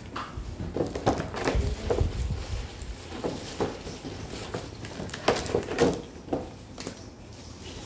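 Handling noises: scattered light clicks and knocks with some rustling, with a low rumble about two seconds in and a cluster of sharper clicks about five to six seconds in.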